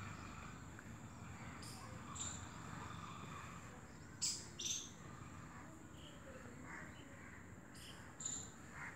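Small birds chirping: short high calls in quick pairs, about two seconds in, halfway through and near the end, over a faint steady background with a thin high tone.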